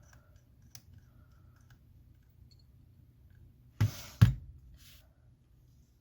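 Two sharp knocks about half a second apart, two-thirds of the way in, with a few faint small clicks before them: small hard tools or parts handled on the work surface while the iPhone's bottom pentalobe screws are taken out.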